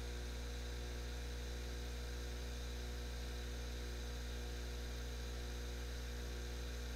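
Steady electrical mains hum with a light hiss, unchanging throughout.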